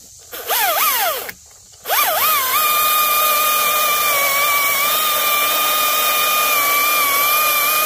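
Husqvarna 540i XP battery top-handle chainsaw in economy mode: a short squeeze of the trigger with the pitch swooping up and down, a brief stop, then a second start about two seconds in. It settles into a steady high whine as the chain cuts through a log of hard, old pine.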